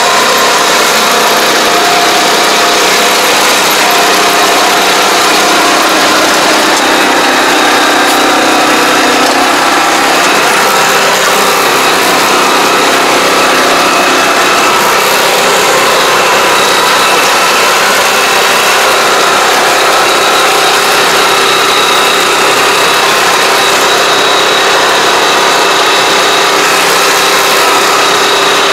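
Small engine of a ride-on pesticide sprayer running steadily and loud, close by.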